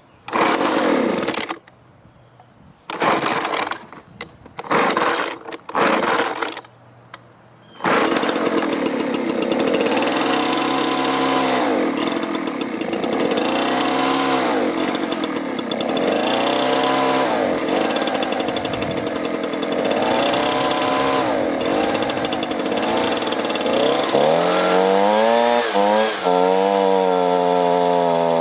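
Two-stroke leaf blower engine being pull-started: a few short bursts as it fires on the pulls, then it catches about eight seconds in and runs on choke, its pitch rising and falling about every two seconds and climbing higher near the end. It is running on the choke because it is starved of fuel, which the repairer puts down to old gas, a clogged filter, carburetor or fuel line.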